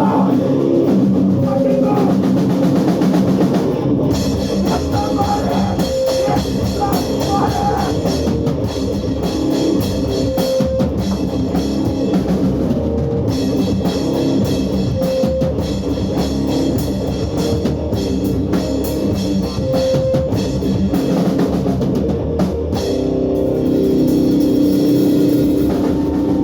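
Hardcore punk band playing live: distorted electric guitar and bass over a pounding drum kit with constant cymbals, settling into a held, ringing chord near the end.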